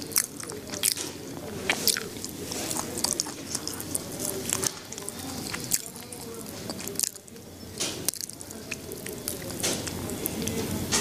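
Irregular small clicks, crunches and rustles close to the microphone, over a steady low murmur.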